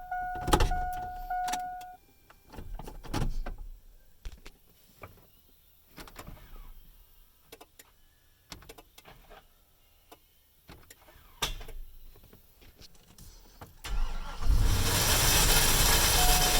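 Pickup truck's warning chime beeping steadily for the first two seconds, then scattered clicks and knocks. About fourteen seconds in the engine starts and runs loudly, and the chime sounds again near the end.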